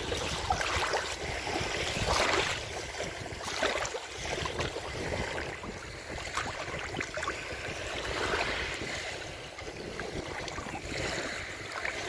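Small sea waves lapping at the edge of a pebble beach, washing in and out over the stones with soft trickling and clicking, the wash swelling and easing every few seconds. Near the end a hand swishes in the shallow water.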